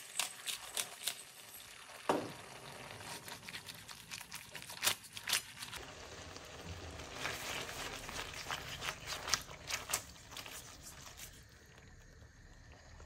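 Pepper grinder turning with quick clicks at the start, then linguine and mantis shrimp in tomato sauce tossed and stirred in the pan: wet sloshing and sizzling with scattered clicks, fading near the end.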